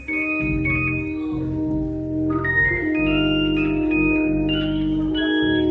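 Organ playing slow, held chords over a sustained bass, moving to a new chord about two and a half seconds in and again about three seconds in.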